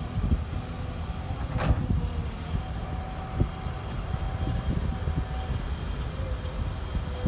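Cat 330 hydraulic excavator's diesel engine running steadily under digging load, with a faint steady hydraulic whine. A sharp metallic clank comes about a second and a half in, and a smaller knock near the middle.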